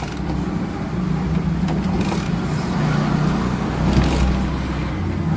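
Royal Enfield Bullet Standard single-cylinder engine idling, with a 'fus fus' puffing sound from the intake: the rubber carburettor elbow is torn.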